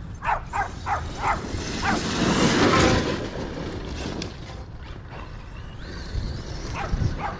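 A dog barking in short, quick yips, four in a row about a second in and a few more near the end. A louder rushing noise swells and fades around the middle.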